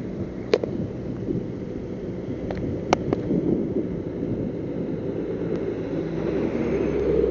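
Wind buffeting the microphone over the steady rumble of highway traffic, with a vehicle engine growing louder near the end. A few sharp clicks about half a second and three seconds in.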